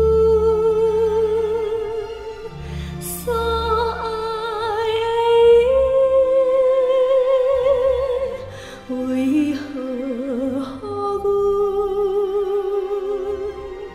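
A Taiwanese Hokkien pop ballad playing: a melody of long held notes with vibrato, each lasting a few seconds, over a soft bass accompaniment.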